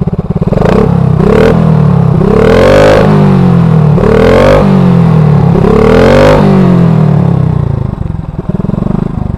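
Yamaha Byson's single-cylinder engine running through an aftermarket Akrapovic titanium-carbon slip-on exhaust fitted with a dB killer, revved while standing: two quick throttle blips, then three longer revs that climb and fall back, settling to idle near the end.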